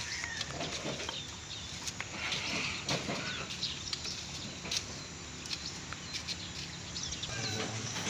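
Scattered short clucks and bird calls over a steady background, with the wing flaps and hops of a caged songbird fluttering about its cage; no song.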